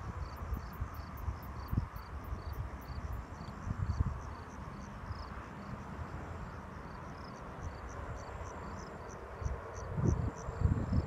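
Insects chirping in an even rhythm of about three high chirps a second, with a faster, higher-pitched series over it for the first few seconds. Wind rumbles and thumps on the microphone underneath, louder near the end.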